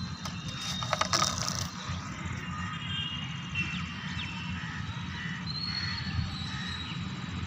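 Rubber-powered foam model plane's plastic propeller spinning up as the plane is hand-launched: a brief, rapid clatter of clicks about a second in. Afterwards faint bird chirps over a steady low outdoor rumble.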